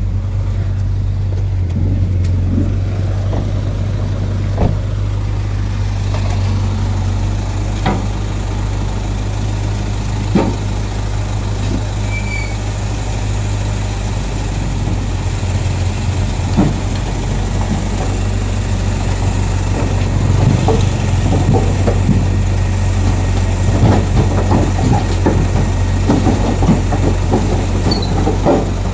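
Excavator's diesel engine running steadily at low revs, with scattered metal knocks and clanks that come more often in the last few seconds.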